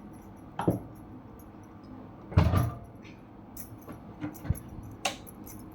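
A few short clicks and knocks from hands working on the parts of a Jack F4 sewing machine around the bobbin case, with the machine not sewing; the loudest knock comes about two and a half seconds in.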